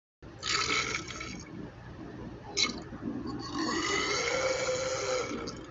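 A person belching: a short burp about half a second in, a brief click near the middle, then a long drawn-out belch whose pitch rises slightly.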